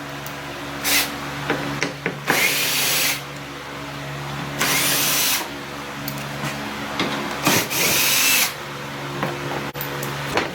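Electric drill with a Torx bit backing out the screws of a car's plastic engine undertray, in several short runs of a second or less, each whining up in pitch as it spins.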